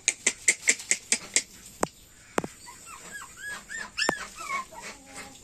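Young puppies whimpering: a string of short, high, rising-and-falling whines, after a fast run of short sharp sounds in the first second and a half.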